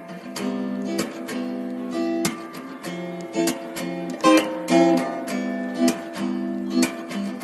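Background music: strummed acoustic guitar with a steady rhythm of strokes.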